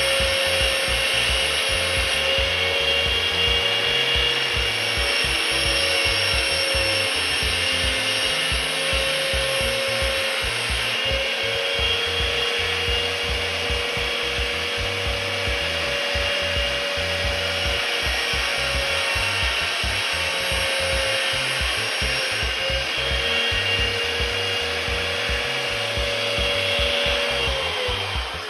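Electric grinder spinning a diamond wheel, running steadily while the teeth of a grooving cutter bit are pressed against it and ground sharp. Its pitch dips slightly now and then under the load. Near the end the motor is switched off and winds down with a falling whine.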